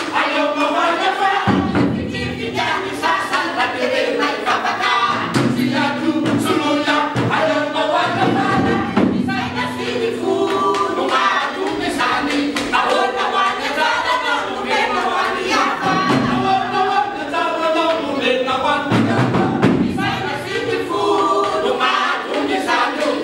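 Malagasy group singing, several voices in harmony, accompanied by a violin and a small hand-held drum. Deep thuds come in a few stretches, about two seconds in, from five to nine seconds, and near the end.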